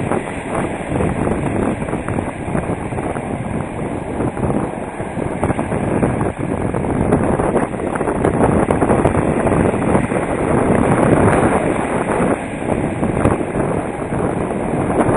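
Wind buffeting the microphone over the rush of surf and moving water, loud and rough, growing louder from about the middle on.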